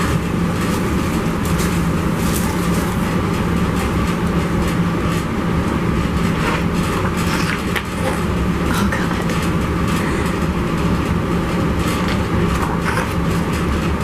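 A steady mechanical hum and rushing noise, with faint rustles and ticks of paper as a large photobook is handled.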